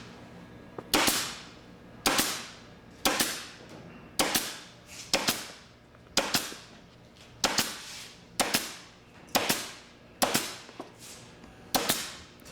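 Pneumatic upholstery staple gun firing about once a second, eleven times, driving staples into trim: each shot a sharp crack followed by a short hiss of air.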